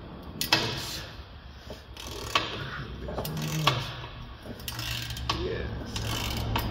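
Ratchet wrench clicking and knocking on a rusty exhaust clamp nut as it is worked in short strokes, a handful of sharp separate metallic clicks.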